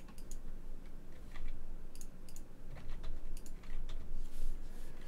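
Computer keyboard and mouse clicking: scattered, irregular single clicks of keys and mouse buttons.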